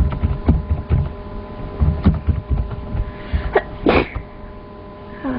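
A woman sneezes once, about four seconds in, a short sharp burst. Repeated low thumps run through the first part.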